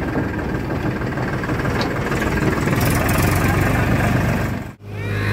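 Farm tractor's diesel engine running steadily while pulling a loaded trailer, heard from on board. It cuts out sharply for an instant near the end, then a steadier low hum resumes.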